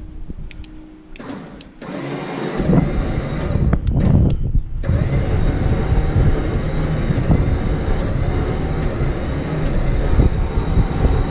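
Winch motor starting about two seconds in and running steadily under load, hauling a ride-on mower up loading ramps on its line, with a short break in the sound about four and a half seconds in.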